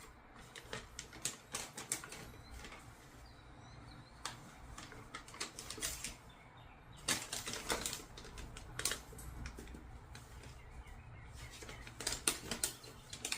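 Sticky adhesive sheet being handled and pulled apart: irregular crackles, clicks and rustles, in clusters.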